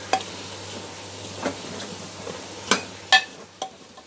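Steel spoon stirring mutton in a metal pot, knocking sharply against the pot's side about four times, over the steady hiss of the meat frying.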